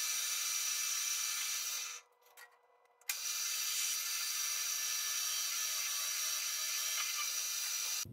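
Metal lathe turning a metal bar, the tool cutting chips off the spinning workpiece with a steady, high-pitched hiss and whine. The sound drops out for about a second, about two seconds in, then starts again abruptly.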